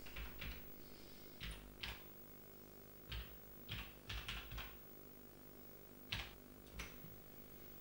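Keys being typed on the Thomson TO9 computer's keyboard: faint, irregular clicks, some single and some in quick clusters.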